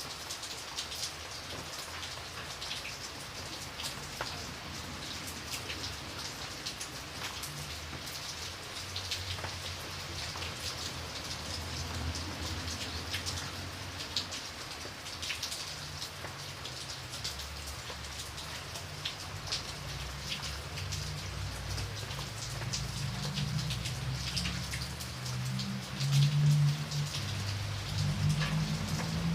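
Rain falling steadily: a hiss full of individual drops ticking on a surface. A low rumble builds through the second half and is loudest near the end.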